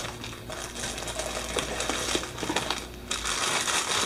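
Plastic packaging rustling and small metal parts clicking as a big bore kit's piston parts (clips and wrist pin) are unpacked by hand.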